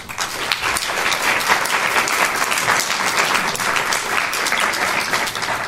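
Audience applauding: many people clapping together, starting abruptly and thinning out near the end.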